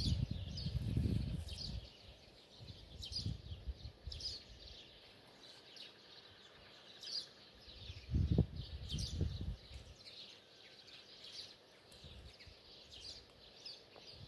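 Small birds chirping in short, frequently repeated high calls, over low rumbling bursts that are loudest about a second in and again around eight to nine seconds in.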